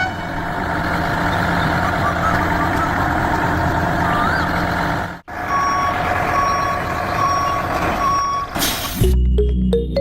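Heavy vehicle engine running, then after a brief break a vehicle reversing alarm beeping about every three-quarters of a second. A short hiss near the end, and music starts just before the end.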